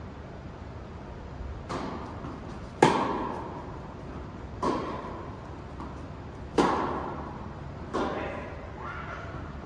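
Tennis rally: five sharp impacts of the ball off racket strings and court, the second and fourth the loudest, each ringing on in the echo of an indoor court hall.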